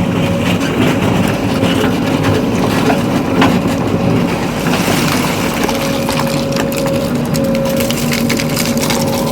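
Diesel engine of a JCB 3DX backhoe loader running steadily under load, with scattered crunching knocks and clatter.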